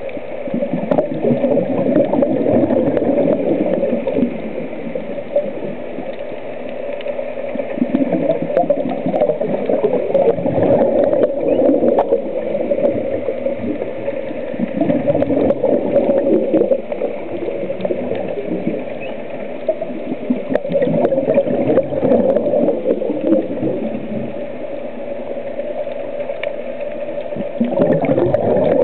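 Muffled underwater sound of a scuba diver's breathing: exhaled bubbles gurgling in surges every few seconds, over a steady drone.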